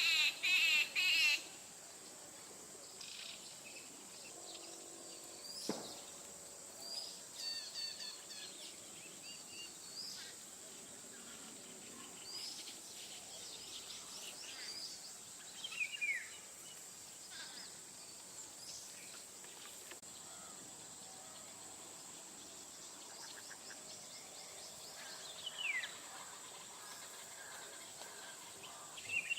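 Wild birds calling in the early morning. A loud run of rapid repeated chirps opens, followed by quieter scattered calls and trills, with a clear downward-slurred whistle about midway and another near the end. A steady high-pitched whine runs underneath.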